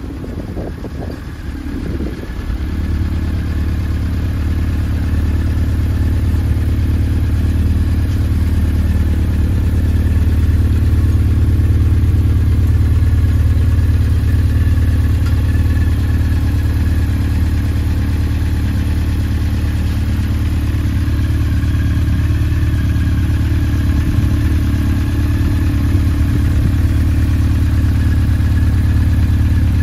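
Honda CB1300 Super Bol d'Or SP's inline-four engine idling steadily, settling into an even idle after a couple of seconds of uneven noise at the start.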